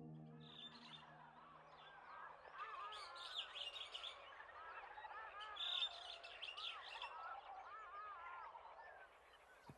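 A faint dawn chorus of many small birds chirping, with louder flurries of high twittering about three and six seconds in. The tail of a held music chord fades out in the first second.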